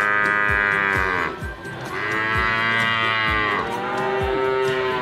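Bovine mooing as a sound effect for a toy water buffalo: long, drawn-out moos one after another, three in all, over background music with a steady beat.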